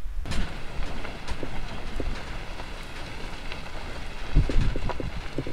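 Vehicle driving on a gravel dirt road: tyres crackling over the gravel, with a low rumble and scattered small knocks and clicks.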